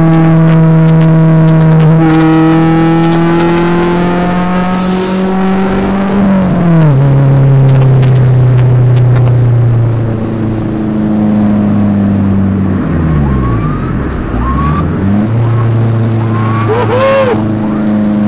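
Honda Civic's swapped four-cylinder engine (B18C Type R head on a B20 bottom end) heard from inside the cabin, pulling hard with its pitch slowly climbing. The pitch drops sharply about seven seconds in as it shifts up. It then runs lower and steadier, with a brief dip and pick-up near the end.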